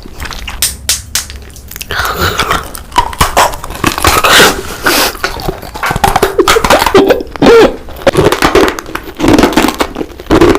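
Close-miked mukbang eating sounds: biting and chewing, with sharp clicks and crunches coming irregularly.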